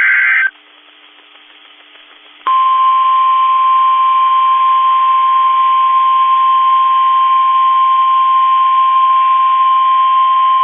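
NOAA Weather Radio emergency alert signal: the tail of a SAME digital header burst, a short high warbling screech, ends about half a second in. After a two-second pause of faint hiss, the 1050 Hz Warning Alarm Tone starts, a single steady loud tone that announces a warning, here a tornado warning.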